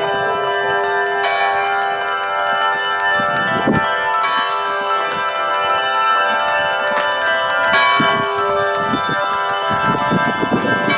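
Several church bells rung by hand, ringing on and on in a dense wash of overlapping tones. A strong low tone fades out about three quarters of the way through.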